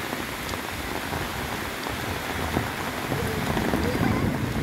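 Heavy rain falling steadily on an umbrella held overhead, a dense even patter that grows a little louder toward the end.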